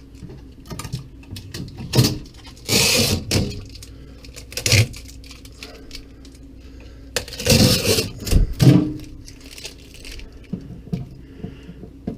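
Knocks and clattering rattles as a refrigerator's bottom tray and shelves are handled, with two louder bursts of clatter about three seconds and eight seconds in.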